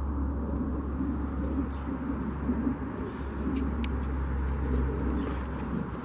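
Soft, low bird calls repeated several times over a steady low rumble, with a few faint clicks.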